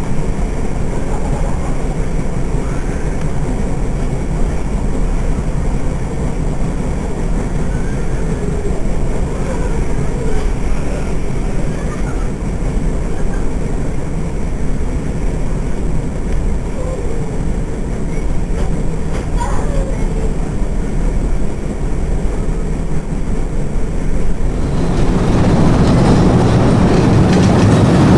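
Passenger carriage running along the rails, heard from inside the carriage: a steady rumble of wheels on track. About three-quarters of the way through it suddenly grows louder and harsher.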